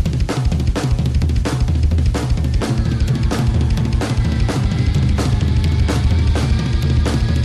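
Instrumental break of a band's track: a full drum kit playing a steady beat of about two hits a second over bass, with a held pitched instrument line coming in about two and a half seconds in.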